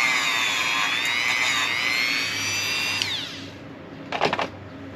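Dremel rotary tool running at high speed against small rusty screw heads, its whine dipping and wavering under load, then switched off about three seconds in and spinning down with a falling whine.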